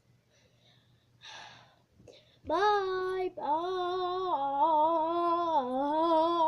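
A child's voice singing drawn-out held notes at a fairly steady pitch with slight wavers, starting about two and a half seconds in after a short breath.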